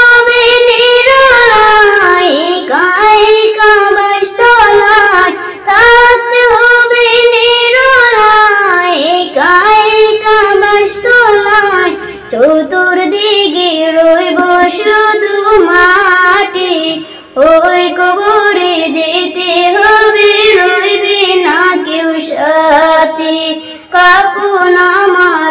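A woman singing an Islamic devotional song solo into a microphone, with long held notes and ornamented glides between them, pausing briefly for breath.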